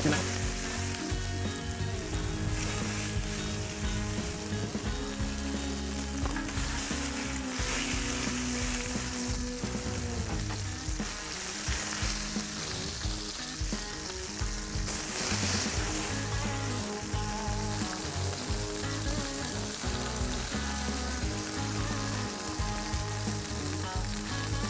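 Two thick ribeye steaks sizzling on a hot flattop griddle, turned now and then with metal tongs. Background music with a steady low beat plays underneath.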